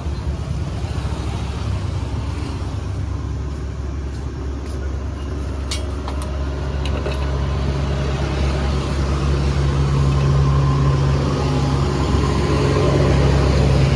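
Road traffic running steadily close by. A motor vehicle's engine hum grows louder through the second half and is loudest near the end. A few short clicks come about six seconds in.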